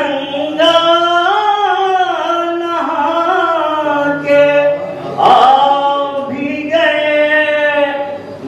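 An elderly man's unaccompanied voice chanting lines of an Urdu ghazal in a sung, melodic style, in several long drawn-out phrases with held notes and short breaks between them.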